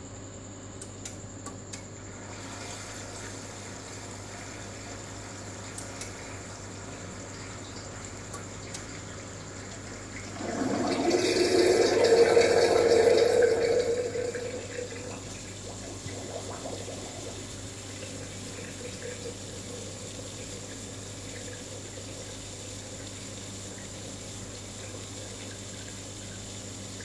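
Water rushing for about four seconds in the middle, rising quickly and fading out, over a steady electrical hum with a faint high whine.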